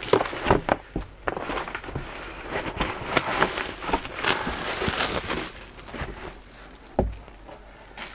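Plastic bubble wrap crinkling and rustling, with cardboard scraping and handling, as a boxed kit is pulled out of its packing; the noise dies down after about five seconds, and a single dull thump comes about seven seconds in.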